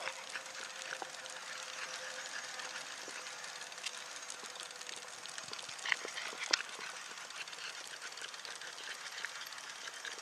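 Wheels rolling steadily over a tarmac path, a constant hiss with scattered ticks and two sharper clicks about six seconds in. A faint steady hum fades out in the first two seconds.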